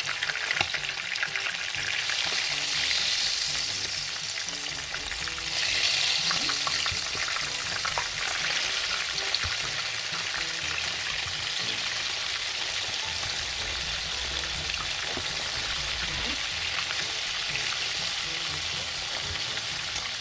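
Floured chicken pieces deep-frying in hot oil: a steady, dense sizzle and crackle that swells louder about two seconds in and again around six seconds in.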